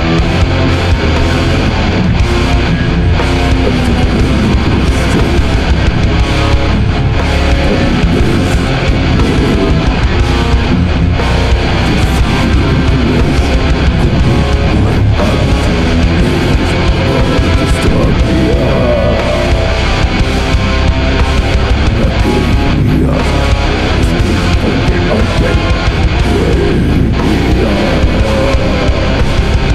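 Death-doom metal: heavily distorted electric guitars over bass and drums, playing continuously and loud.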